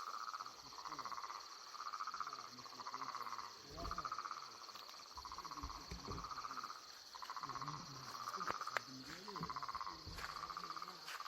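A frog chorus: trilled croaks repeating about once a second, over a continuous high-pitched insect chirring.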